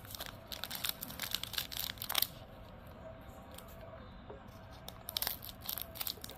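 Foil wrapper of a trading-card pack crinkling and tearing as it is opened, in two spells of quick crisp rustles, the second starting about five seconds in.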